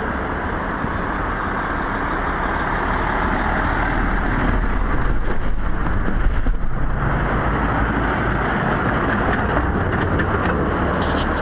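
Road traffic passing close by over rough, patched asphalt: tyre and engine noise of cars and a diesel concrete mixer truck. The sound swells to its loudest about halfway through as the truck goes past, with engines droning as the cars follow.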